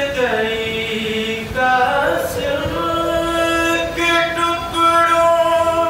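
A man's voice chanting a noha, an Urdu lament, unaccompanied. He slides down through a phrase, then holds long drawn-out notes.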